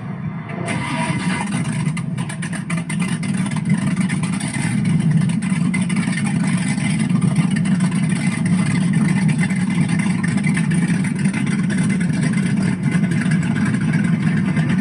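Twin supercharged 496 Chevrolet big-block V8 engines of a powerboat running, a loud, deep and steady drone.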